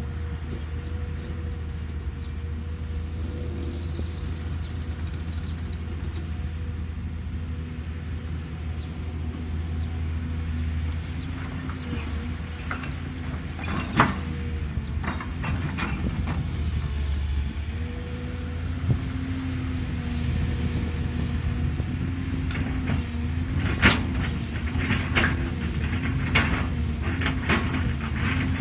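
Caterpillar excavator running steadily at work, with sharp knocks and clanks from the digging gear. The clanks come once about halfway through and then several times in quick succession near the end.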